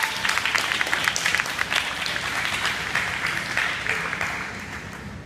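Audience clapping, a dense patter of hand claps that thins out and fades away near the end.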